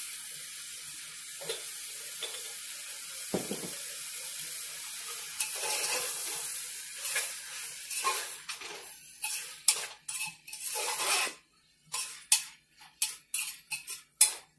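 Diced vegetables sizzling in oil in an aluminium pressure cooker, with one dull knock about three seconds in. In the second half a steel spoon stirs them, scraping and clinking against the pot's metal in quick, uneven strokes.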